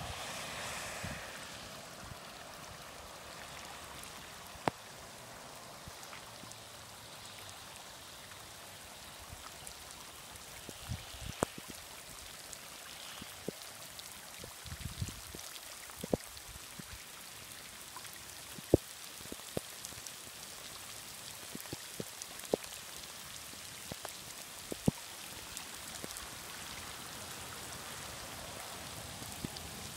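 Shallow floodwater flowing over sand, a steady hiss, with scattered sharp ticks through it.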